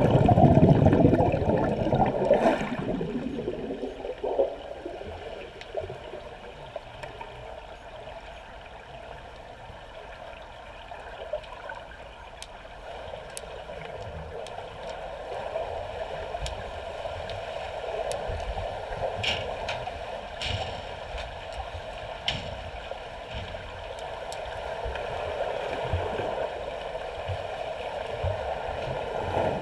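Swimming-pool water heard underwater: muffled churning and bubbling as swimmers move and push off. It is loudest in the first couple of seconds, then settles to a steady low wash, with a few sharp clicks about two-thirds of the way in.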